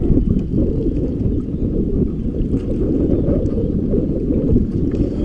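Wind buffeting the microphone on an open boat: a loud, steady low rumble with no distinct engine note.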